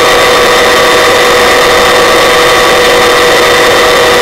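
Helicopter turbine engine and rotor running steadily, a loud even drone with a constant high whine made of several steady tones.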